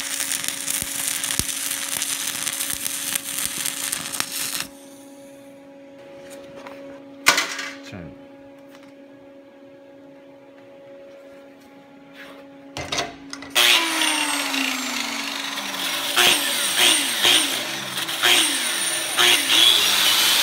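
Stick (SMAW) welding arc crackling steadily as the weld is tied in, breaking off suddenly after about four and a half seconds. A low hum follows, with two sharp clicks. About two thirds of the way through, a hand tool starts cleaning the slag off the weld, with repeated scraping and knocking strokes.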